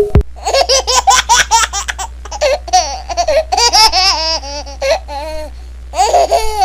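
High-pitched laughing in quick repeated bursts, coming in several bouts.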